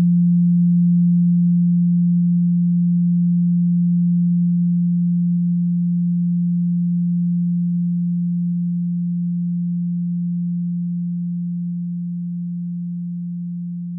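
A pure 174 Hz sine tone, the 'solfeggio frequency', held at one steady low pitch. It gradually gets quieter, fading faster near the end.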